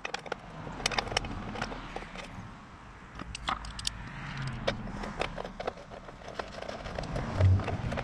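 Scattered clicks, taps and light metallic clinks of a chrome air-cleaner cover being fitted onto a Harley-Davidson Sportster and its centre fastener worked by hand.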